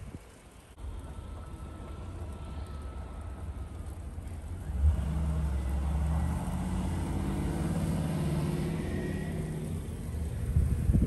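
A car driving through the intersection: a low engine rumble that gets louder about five seconds in, holds for several seconds, and eases off near the end.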